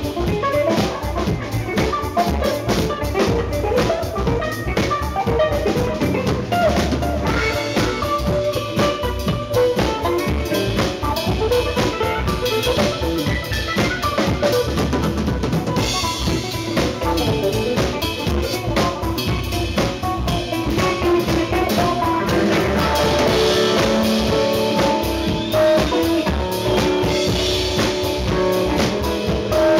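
Live instrumental band music: electric bass, mandolin and a drum kit playing together, the drums with bass drum and snare to the fore.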